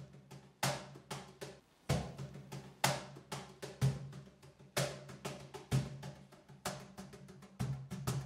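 Live percussion playing a steady rhythm: a strong drum stroke about once a second with lighter strokes in between, over a low ringing tone.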